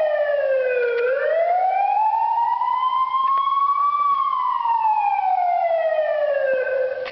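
Police wail siren ringtone: one electronic tone sliding slowly down, then up, then down again, each sweep taking about three seconds, before it cuts off suddenly.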